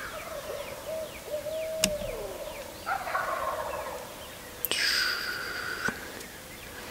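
Wild turkey gobbling, two rattling gobbles about three and five seconds in, the second louder: toms on the roost gobbling at each other. Small birds chirp faintly.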